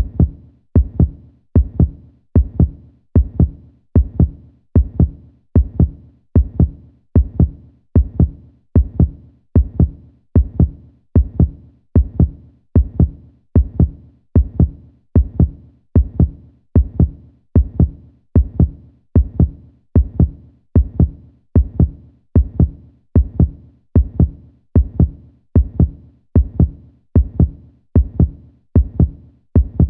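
Heartbeat sound effect: steady, deep double thumps repeating evenly, about one beat a second.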